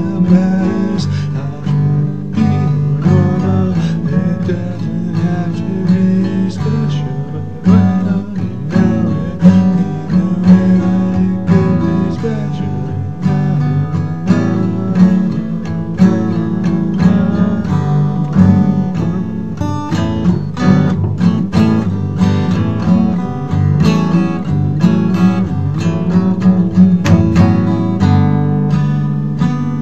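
Instrumental acoustic guitar jam with overdubbed parts: several guitars plucking and strumming together.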